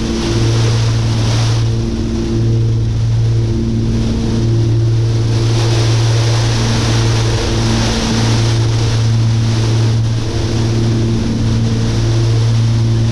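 The twin piston engines of a Cessna 414 drone steadily in flight, with a continuous hiss of hail pelting the airframe that swells and eases.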